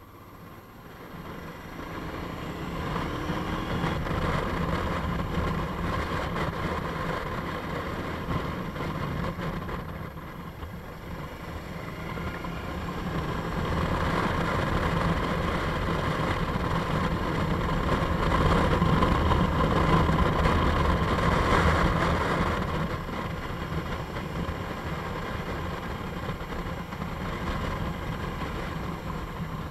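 Motorcycle engine running while the bike is ridden, growing louder over the first few seconds as it pulls away, with a further swell about two-thirds of the way through.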